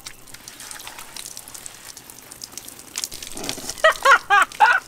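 Outdoor shower head spraying water onto the bathers, with a steady hiss. About three seconds in, a woman breaks into a quick, high-pitched run of laughter that is the loudest sound.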